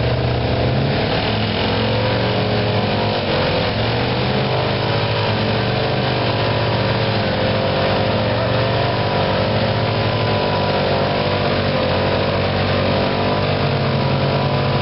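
ATV and pickup truck engines running together while the quad tries to tow the truck out of deep mud, steady with small rises and falls in pitch.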